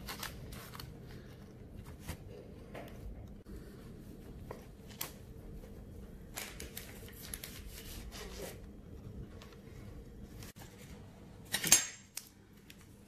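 Table knife cutting and scraping along the crusty edges of a baked caramel cake on baking paper, with small scrapes, taps and paper rustling. A single sharp knock near the end is the loudest sound.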